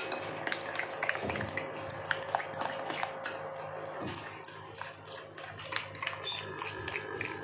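A spoon stirring and beating softened dark chocolate compound in a microwave bowl to finish melting it, with many irregular clicks and scrapes against the bowl.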